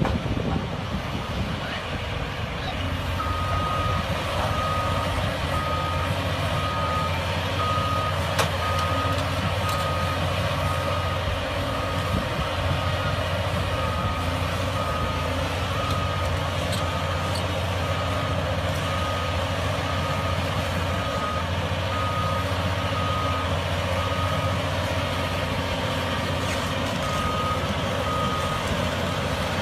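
Heavy vehicle's reversing alarm beeping at a steady even pace over a running diesel engine, with a single sharp knock about eight seconds in.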